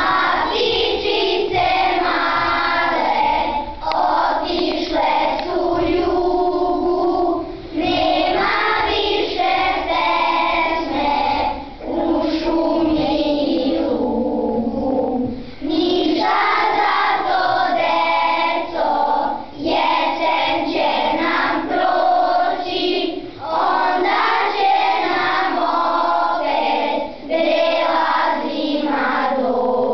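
Children's choir singing together in phrases of a few seconds, with short breaks between them.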